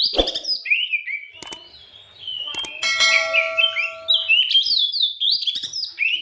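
Oriental magpie-robin (kacer) singing loud, fast phrases of whistled up-and-down notes. A sharp knock comes just after the start, and about three seconds in a steady buzzing tone sounds for about a second and a half.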